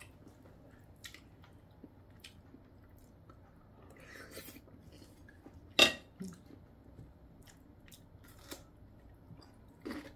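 Close chewing and crunching of food, with light clicks of a spoon and chopsticks on a plate. A single sharp clack a little past halfway is the loudest sound.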